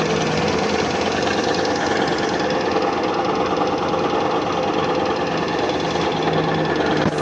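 5 hp Puma high-pressure piston air compressor running steadily, a fast, even mechanical knocking.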